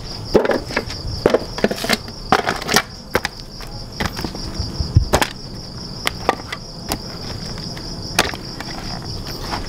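Crickets chirring steadily, with scattered knocks and clatters of pieces of chopped softshell turtle shell being set down on a metal tray.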